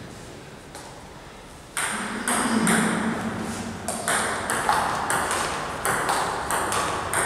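Table tennis rally: the ball clicking off the paddles and the table in quick succession, beginning with the serve about two seconds in.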